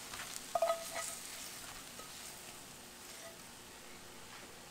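Hot fried okra and oil sizzling faintly as the okra is scraped out of the skillet with a spatula, with a few short scrapes about half a second to a second in.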